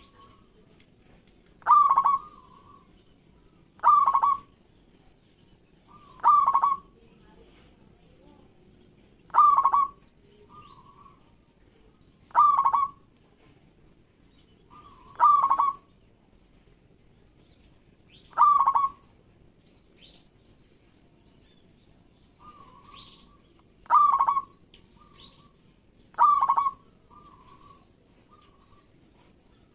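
Zebra dove (local perkutut) calling: a loud, short cooing phrase repeated nine times, about every two to three seconds, with a longer pause about two-thirds of the way through and a few soft notes between phrases.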